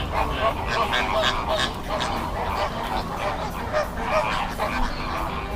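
A flock of greater flamingos honking, with many short, overlapping goose-like calls.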